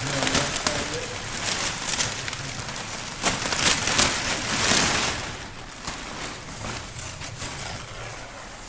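Plastic wrapping being pulled off a new motorcycle, a dense crinkling and rustling that is loudest about three to five seconds in, then dies down.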